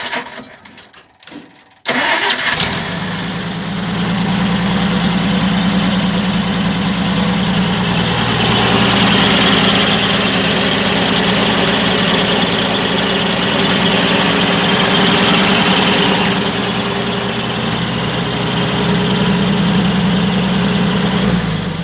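Flathead Chrysler engine of a 1957 snow machine starting up about two seconds in and running steadily, falling away near the end.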